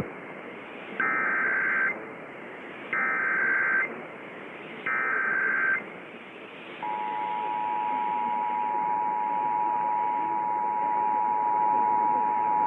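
Emergency Alert System test signal off a broadcast: three one-second bursts of warbling SAME header data tone, then, about seven seconds in, the steady two-tone EAS attention signal, all over a steady hiss.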